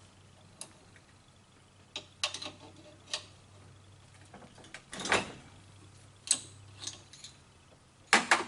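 Irregular clicks and knocks of small hard parts and tools being handled on a workbench, the loudest a knock about five seconds in and a quick double knock near the end, over a faint steady low hum.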